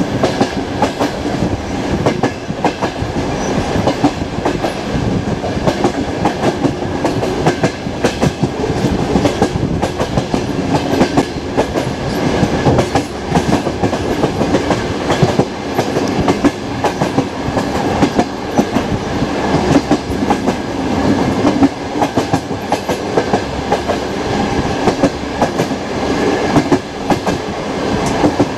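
Express passenger train running at speed, heard from a window of the moving train: a steady loud rumble of wheels on rails, broken by frequent irregular clicks and knocks of the wheels over the track.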